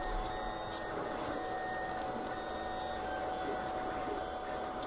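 Lulzbot TAZ 5 3D printer running a print: its stepper motors give short whining tones that change pitch every second or so, over a steady whir with one constant tone.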